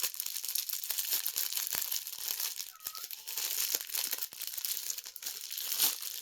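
Packaging crinkling and rustling as it is handled, with many small clicks and taps.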